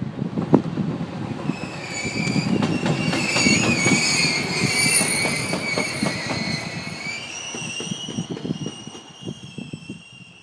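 JR Freight EF210 electric locomotive running light past, its wheels rumbling and clicking over rail joints. As it moves away, a high whine of several steady tones sounds, then fades near the end.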